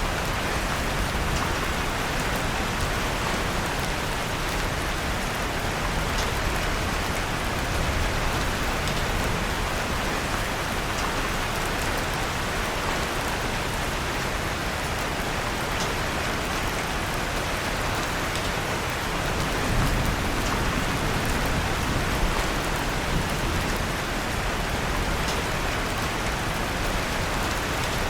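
Steady rain falling, with occasional faint crackles from a fireplace fire and a soft low swell about two-thirds of the way in.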